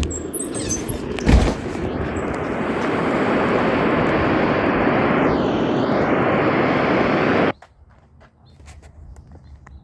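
Radio static hiss from a weather-radio receiver after the alert broadcast ends, opening with a click and a thump, growing slightly louder, then cutting off abruptly about seven and a half seconds in as the receiver goes quiet.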